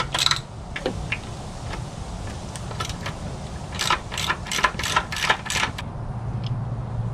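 A ratchet wrench with a T30 Torx socket clicks as screws are backed out of the outboard's lower cowling panel. There are a few scattered clicks, then a quick run of about eight clicks roughly four seconds in, over a steady low hum.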